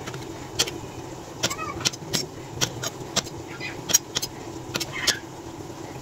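Kitchen knife slicing button mushrooms on a plastic cutting board: the blade knocks the board in sharp, irregular taps, about two a second.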